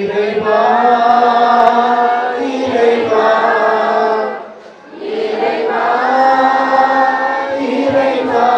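A group of voices singing a slow, chant-like hymn in long held phrases, with a short pause for breath about halfway through.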